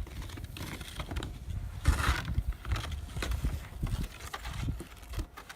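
Irregular crunching thuds in snow, with a louder crunch about two seconds in.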